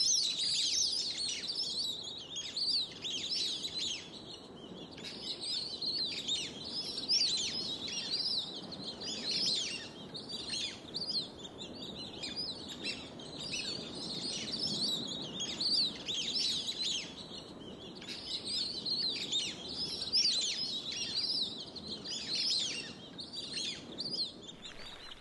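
A flock of plumed whistling ducks calling: many overlapping high, sliding whistles that run on without a break.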